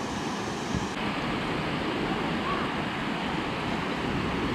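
Ocean surf breaking and washing up the beach: a steady, even rush of water.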